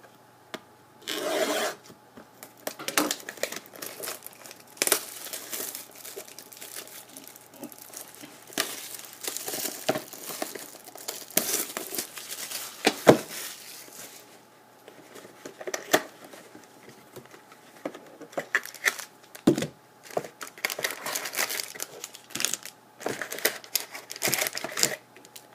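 Packaging of a box of hockey trading cards being torn open and crinkled, in a run of irregular tearing and rustling bursts with short pauses.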